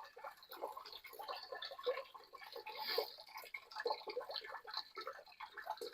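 Flushing water running out of a John Deere 50 tractor's open radiator drain, gurgling and splashing unevenly.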